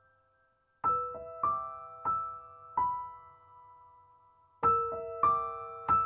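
Slow, quiet piano music, likely background music. A chord sounds about a second in, followed by single notes roughly every two-thirds of a second. After a pause, another chord and more notes come near the end, each note ringing out and fading.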